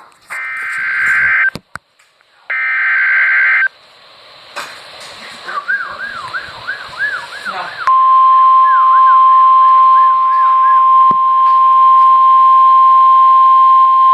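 Emergency Alert System SAME header, heard as two harsh data bursts of about a second each, a second apart. A warbling sound follows. About eight seconds in, the NOAA Weather Radio warning alarm tone begins, a single loud steady tone that holds on, announcing a new severe thunderstorm warning.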